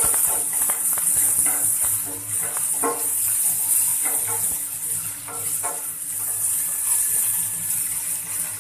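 Sliced vegetables sizzling in oil in a non-stick frying pan while being stirred with a wooden spatula, with irregular scrapes and taps of the spatula against the pan over a steady hiss.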